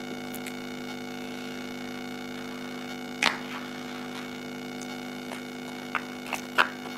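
Steady electrical hum under a few sharp clicks of plastic interlocking toy blocks being handled and pressed onto a model. The loudest click is about three seconds in, with a few smaller ones near the end.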